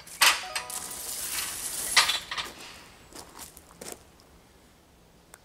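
Steel knock-down plates and their rack clanking and rattling as the plates are reset upright, with short metallic ringing. There is a sharp clank just after the start and another about two seconds in, then a few lighter clicks.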